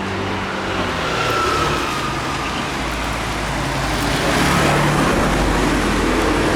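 A motor vehicle engine running close by, its pitch shifting and getting louder about four seconds in.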